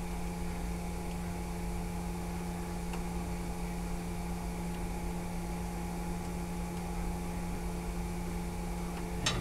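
Steady machinery hum with several constant tones over a low rumble, and one sharp click near the end.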